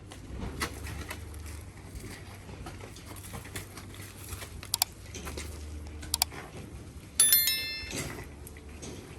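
Cow-barn clatter: scattered knocks and clicks over a low hum, with a loud ringing metal clang about seven seconds in.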